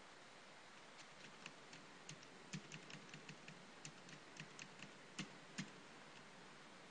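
Computer keyboard being typed on: a quick run of faint key clicks starting about a second in, ending with two louder strokes.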